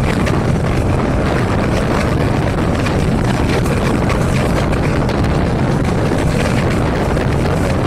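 Diesel locomotive engine running steadily under way, a dense low rumble with rushing noise over it and no change in pitch.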